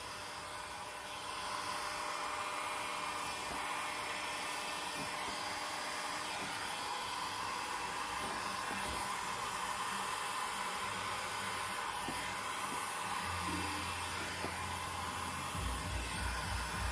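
Handheld electric heat gun blowing a steady stream of hot air, a continuous whooshing hiss. Near the end a low fluttering joins it.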